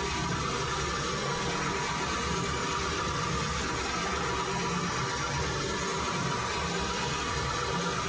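Metal lathe running steadily, turning a metal shaft with coolant flowing onto the cut: a constant hum with a faint steady whine.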